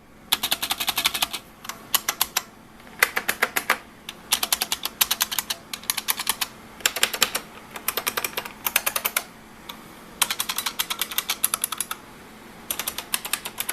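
IBM Model M2 buckling-spring keyboard being typed on: about eight quick bursts of clicky keystrokes with short pauses between them. Its plastic case gives the buckling springs a lighter, higher-pitched click than the metal-built Model M.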